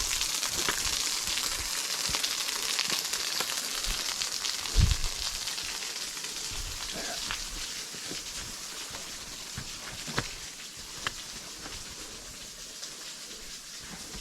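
Steady hiss of a small waterfall's falling water, slowly getting quieter, with scattered footsteps on rock and a low thump about five seconds in.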